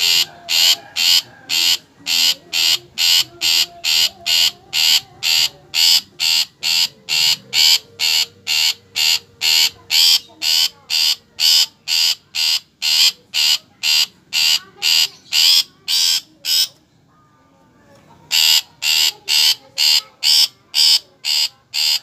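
Long-tailed shrike (cendet) calling with a harsh, steadily repeated note, about two and a half a second. It breaks off for about a second and a half near the end, then starts again.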